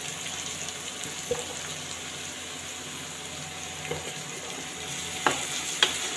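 Chopped onions sizzling in hot mustard oil in a pan, being lightly fried so they stay a little crunchy. A spatula stirs them, with a couple of sharp clicks against the pan about five seconds in.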